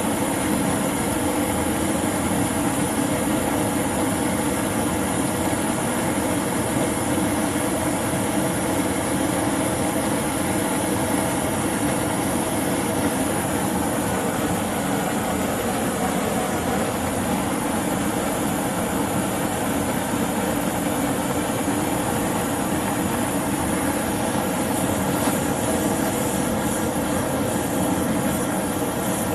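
High-temperature LPG/propane torch flame burning steadily, heating the work for silver soldering.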